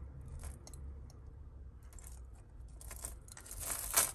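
Tangled metal necklace chains jingling and clicking as they are worked apart by hand, with a louder rustle near the end.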